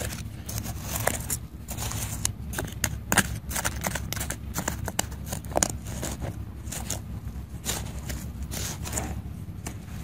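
A small plastic trowel scraping and digging in dry, stony soil: irregular scrapes with crumbling soil and grit, over a steady low rumble.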